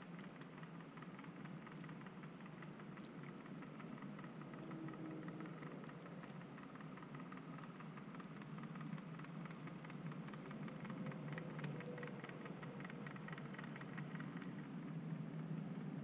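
Faint hum and fine rapid clicking of an OO gauge model Class 08 shunter running along the track, its motor and wheels growing slightly louder as it approaches.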